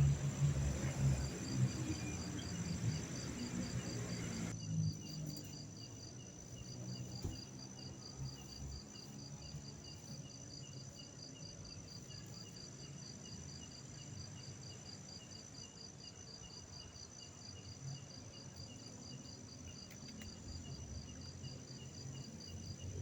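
Crickets or other night insects chirping in steady, even pulse trains at several different pitches. A low rumble underneath cuts off suddenly about four and a half seconds in, leaving only the insects.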